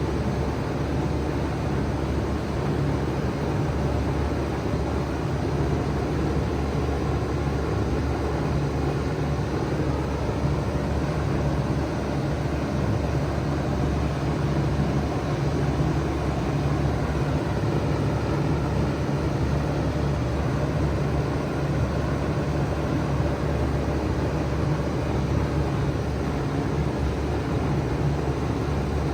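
2007 Bard 5-ton wall-hung heat pump running steadily in cooling mode: a low, even hum of the compressor under a steady rush of fan air.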